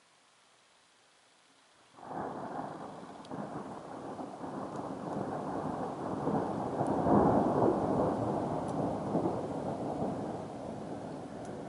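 Thunder from a lightning strike: after near silence, a deep rumble starts suddenly about two seconds in, builds to its loudest around the middle, and slowly fades toward the end.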